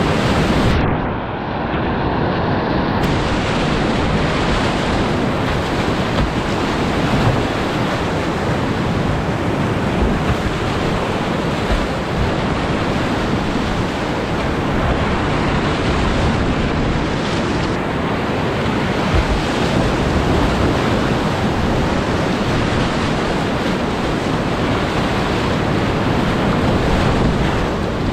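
Whitewater rapids rushing steadily, heard close up from a kayak running the rapid. The hiss of the water is briefly muffled about a second in.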